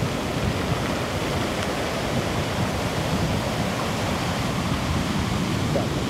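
Storm surf breaking and washing up a pebble beach: a loud, steady rush of water.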